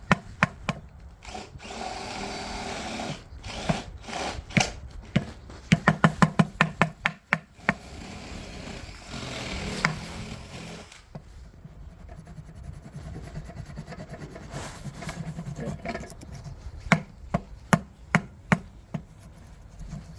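Hand-tool work: irregular sharp knocks, then a quick run of about eight hammer-like blows around six seconds in, with rubbing and scraping between them.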